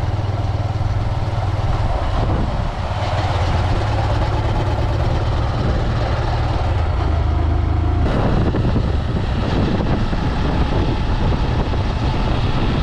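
Motor vehicle engine running steadily at road pace with a low hum. About eight seconds in, the steady hum gives way to a rougher rushing noise.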